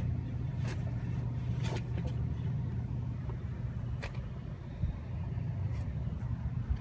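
Tennant S20 ride-on floor sweeper's engine idling steadily as a low hum, with a few light clicks.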